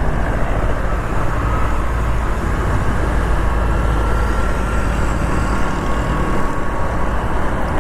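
Motorcycle riding through traffic, heard through a small lavalier mic: a steady rush of wind on the mic mixed with the bike's engine and road noise.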